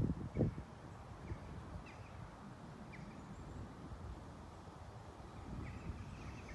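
Wind buffeting the microphone in gusts, strongest near the start, over a steady outdoor low hum, with a few short faint bird chirps scattered through.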